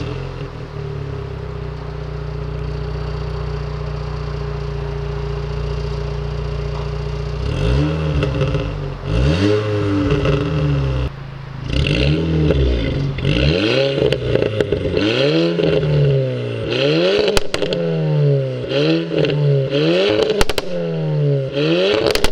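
Tuned 315 hp VW Scirocco R's turbocharged 2.0-litre four-cylinder through an FI Exhaust, freshly started and holding a steady idle for about seven seconds. Then come a string of quick throttle blips, the revs rising and falling again and again, with crackles and pops on the overrun in the later blips.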